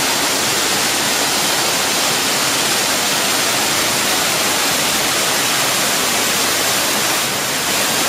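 A 60-foot waterfall in a rock grotto pouring down the rock face and splashing into a pool: a loud, steady rush of falling water.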